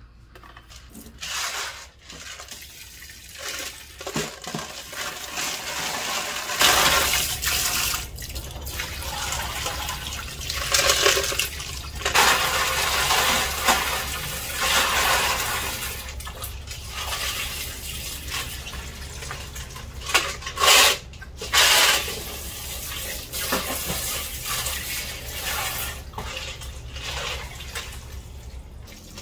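Kitchen tap water running into a steel pot in a sink, starting about six seconds in, while shellfish are rinsed and rubbed together by hand, with a few sharp clinks.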